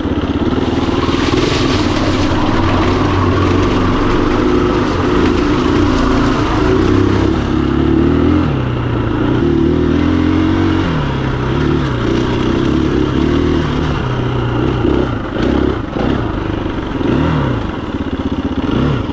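KTM 350 EXC-F dirt bike's single-cylinder four-stroke engine running under way on a trail, its revs rising and falling, with a few short knocks and clatters near the end.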